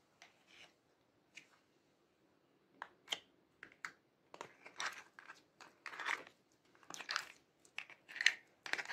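Orange slime squished by hand and pressed with a clear plastic heart-shaped mold, making sticky crackling and squelching pops. The pops are sparse at first and come thick and fast from about three seconds in.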